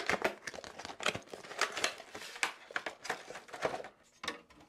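Crinkling and rustling of cardboard and plastic packaging as a Noctua fan box is handled, in quick irregular crackles with a short pause near the end.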